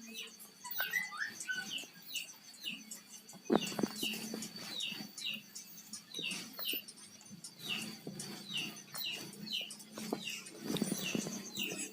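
A small bird chirping over and over, short down-slurred chirps about twice a second, over a low steady hum. One louder knock or rustle comes about three and a half seconds in.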